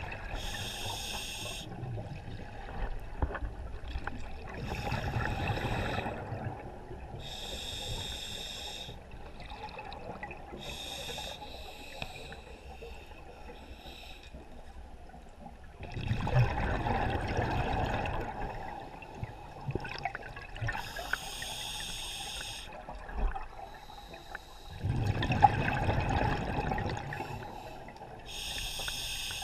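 Scuba diver breathing through a regulator underwater: about six hissing inhalations, each a second or two long, and two longer bursts of bubbling exhalation, about halfway through and again near the end.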